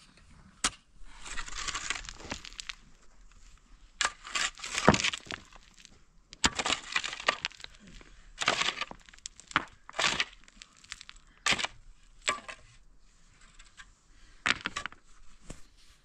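A long-handled pick chopping into dry, stony earth. The strikes come again and again at uneven gaps of one to two seconds, each with the crunch and rattle of loosened dirt and stones.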